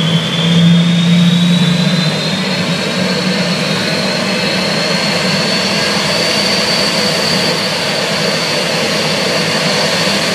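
Jet car's jet engine running after start-up: a high whine rises over the first few seconds and then holds steady over a loud rushing roar, with a lower hum that fades after about two seconds.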